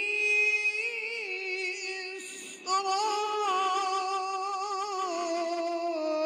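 A man's voice chanting Quran recitation in the melodic tajweed style, drawing out long, wavering held notes on the verse ending 'Bani Isra'il', with a short break about two seconds in.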